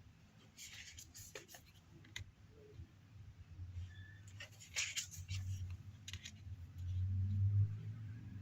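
Oracle cards being handled and turned during a flip-through: several short swishes and clicks of cardstock sliding and tapping. A low rumble swells over the last few seconds.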